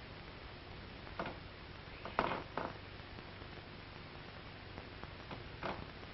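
Steady hiss of an old film soundtrack with four short, soft knocks spread irregularly over it, the loudest about two seconds in.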